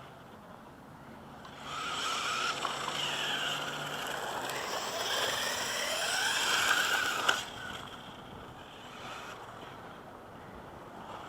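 Electric-converted 1/8-scale RC buggy driving, its motor and gears whining and rising and falling in pitch as it speeds up and slows. It starts about two seconds in, lasts about six seconds and stops suddenly with a click.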